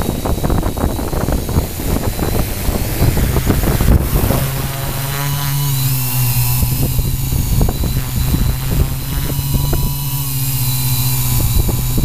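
Q800 quadcopter's brushless motors and propellers heard from its onboard camera. Rough buffeting noise while it sits on the grass, then, about four seconds in, a steady hum as it lifts off and climbs.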